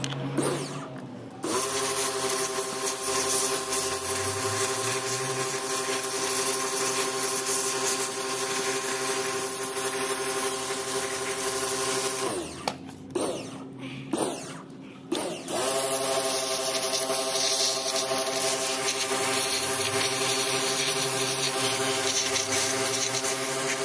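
Pressure washer running, a steady motor whine under the hiss of the water jet spraying a starter motor's field coil assembly. The spray starts shortly after the beginning, stops about halfway, comes back in a few short bursts, then runs steadily again.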